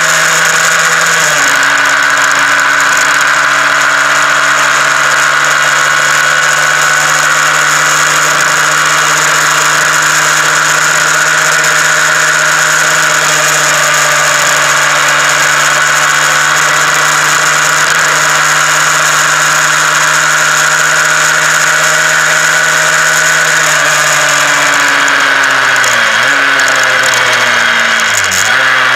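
Honda CBR125R's single-cylinder four-stroke engine running at a steady cruise, its note stepping down slightly about a second in. Near the end the note falls as the bike slows, with two brief dips.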